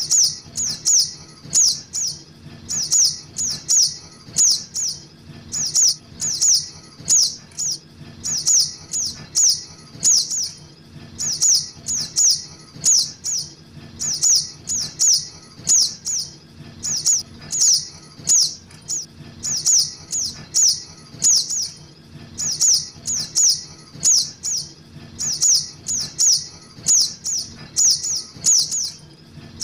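Juvenile sogok ontong (crimson sunbird) calls played as a bird lure: high, thin chirps in quick groups of three or four, repeating about every second and a half without a break.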